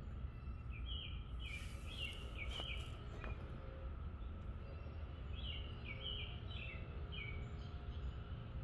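A songbird singing two short phrases of quick repeated chirps, about a second in and again around five seconds in, over a steady low background rumble.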